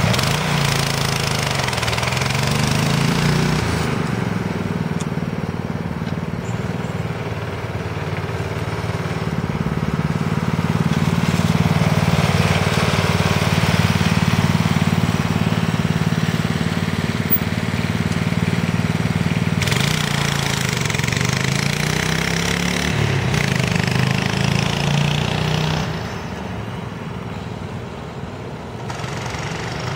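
Small 6.5-horsepower single-cylinder engine of a homemade three-wheel go-kart running under way. Its pitch falls and climbs again twice. It grows fainter near the end as the kart drives off.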